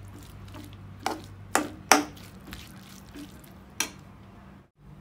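Steel spoon stirring masala in a non-stick frying pan, with four short clicks of the spoon against the pan, the loudest about two seconds in. A low steady hum runs underneath.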